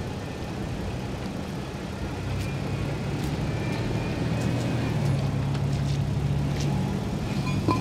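Vehicle engine running with a steady low hum that grows louder a couple of seconds in, with a few faint clicks over it.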